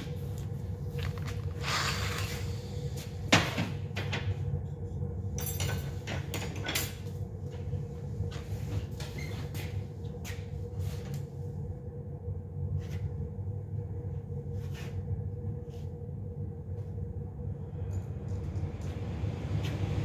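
Steady low hum of a workshop with scattered light knocks and clicks, a sharper click about three seconds in.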